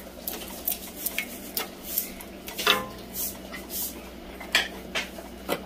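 A wooden spatula is stirring and scraping lobster meat in butter in an enameled cast-iron skillet. It gives about eight irregular light knocks and scrapes against the pan.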